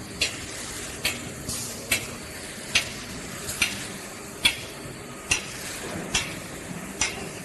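Automatic paper tube making machine running, with a sharp click repeating at an even beat of a little more than once a second over a steady hiss.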